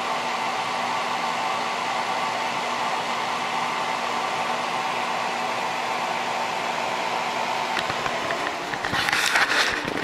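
Idylis 12,000 BTU single-hose portable air conditioner running: a steady rush of fan air with a constant hum from the unit. Near the end comes a brief, louder rush of noise.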